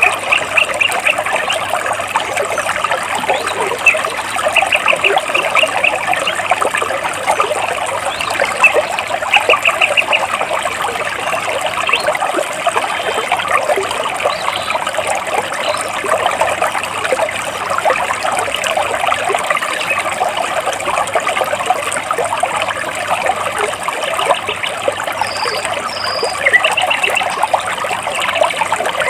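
Stream water trickling and splashing steadily over rocks, while a small bird repeats a short rapid trill several times and gives two brief high chirps near the end.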